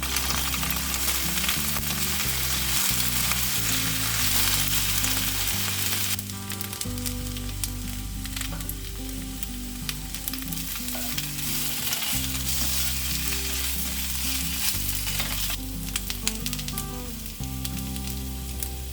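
Food sizzling in a hot frying pan as it is stir-fried, with scattered small crackles; the sizzle is loudest for the first six seconds, then eases. Soft background music with low notes runs underneath.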